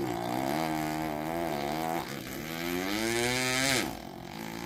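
A boy's voice imitating a four-stroke dirt bike engine: a buzzing drone that wavers in pitch, dips briefly, then climbs as if revving up and drops off near the end before starting again briefly.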